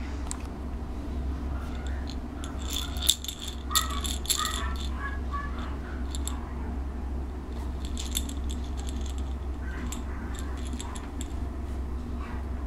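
A rattle inside a plush toy, shaken in short spells: a rapid dry rattling, busiest about three to five seconds in and returning twice later, over a steady low hum.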